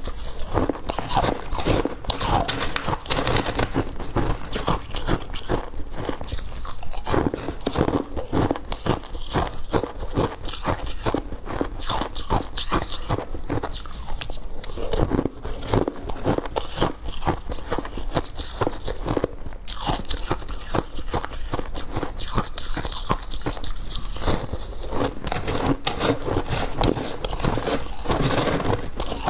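Close-up, continuous crunching of hard ice and freezer frost being bitten and chewed, a quick run of crisp cracks and crunches with no pause.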